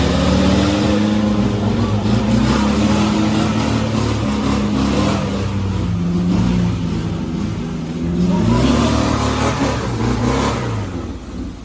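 Off-road 4x4 engine revving up and down under load, its pitch rising and falling repeatedly.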